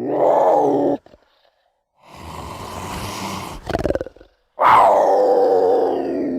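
Puma (cougar) growling and snarling: a loud snarl that cuts off after about a second, then a hissing breath that ends in a short rattling growl, then a second loud snarl about four and a half seconds in that slowly falls away.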